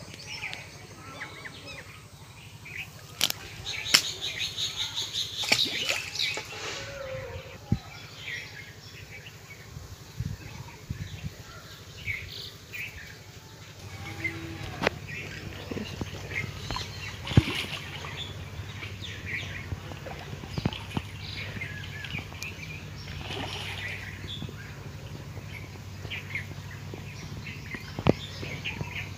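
Outdoor pond-side ambience: birds chirping, with a run of quickly repeated high chirps early on, scattered sharp clicks and knocks, and faint voices. A low steady hum comes in about halfway through.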